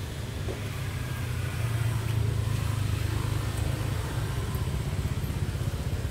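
Steady low rumble, engine-like, swelling slightly about two seconds in.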